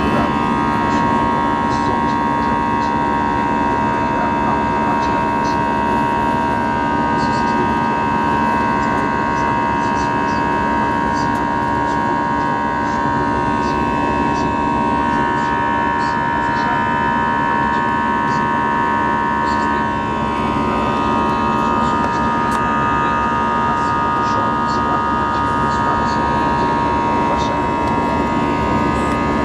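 Jet airliner cabin noise during the climb after takeoff: the steady drone of the engines and rushing air, with a steady high whine running through it.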